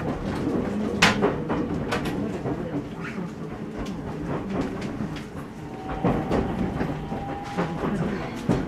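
JR 313-series electric train running, heard from inside the passenger car: a steady rumble with the clickety-clack of wheels over rail joints, a sharp click about a second in, and a thin steady whine for about two seconds past the middle.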